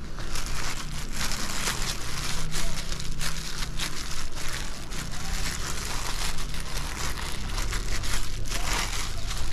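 Thin plastic bag crinkling and rustling in quick, irregular bursts as it is bunched and wrapped around a ball of wet mud, over a steady low rumble.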